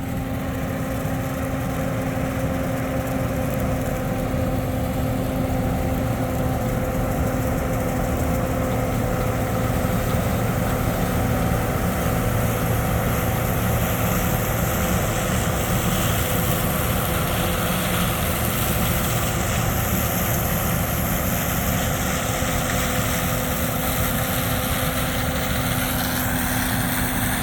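Combine harvester running steadily while cutting soybeans: a constant engine and machinery drone with a steady hum, unchanged throughout.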